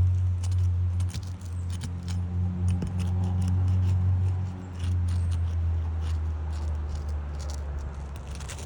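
Asphalt shingle courses being gently pried apart with a roof snake: scattered small clicks, crackles and scrapes, over a steady low hum.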